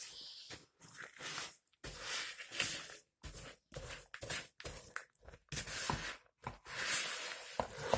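Spoon stirring crushed biscuits coated in melted chocolate and butter in a mixing bowl: irregular scraping strokes with short pauses between them.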